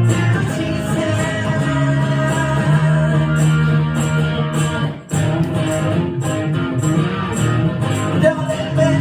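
A singer-guitarist performing live: a guitar playing chords with a singing voice, breaking off briefly about five seconds in before carrying on.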